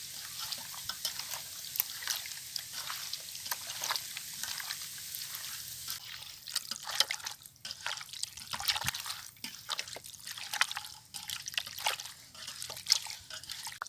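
Raw chicken pieces being mixed in a wet curd, lemon and spice marinade: irregular squelching and smacking.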